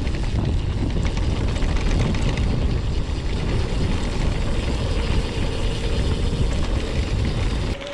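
Wind buffeting the microphone and a mountain bike rattling over a rough trail at speed, with many small knocks. The noise drops off suddenly near the end.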